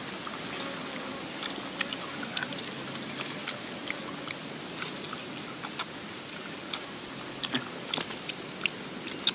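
People eating cooked softshell turtle with their hands: chewing, with many small irregular mouth clicks and bone-picking sounds over a steady background hiss. A thin steady high tone stops about two-thirds of the way through.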